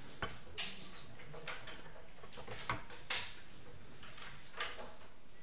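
Coloured pencil shading on paper: a handful of short, scratchy strokes at irregular intervals over a steady faint hiss.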